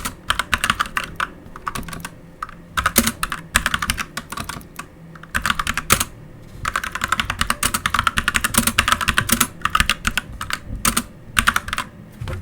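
Typing sound test on a Magegee MK1 TKL mechanical keyboard with Jixian red linear switches: fast runs of key clacks in bursts, with brief pauses between them.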